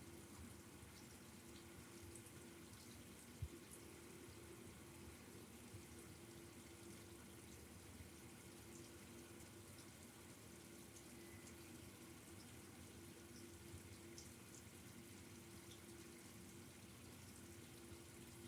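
Near silence: faint steady room tone with a low hum, and one soft click about three and a half seconds in.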